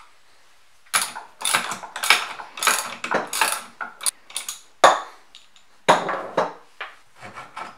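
Steel rods, fittings and hand tools of a Kity 652 mortiser's lever mechanism being worked loose and pulled out by hand: irregular metallic rattling and clinking, with a sharp click about five seconds in.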